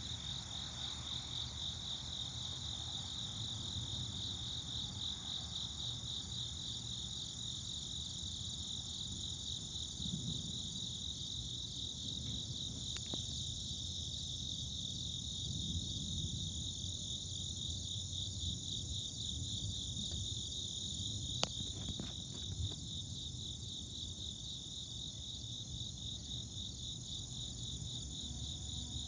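Insect chorus: a steady, pulsing high trill, with a low rumble underneath and a sharp click about 21 seconds in.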